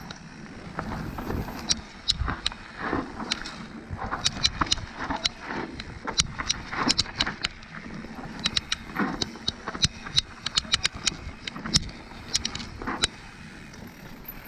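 Bike jolting over rough ground: a continuous run of irregular sharp clicks and rattles over a low rumble of tyres and wind.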